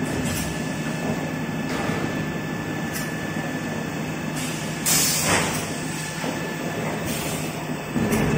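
Toilet paper and kitchen towel converting line running: a steady mechanical rumble and hum from its rollers and drives. A brief louder rush of noise comes about five seconds in.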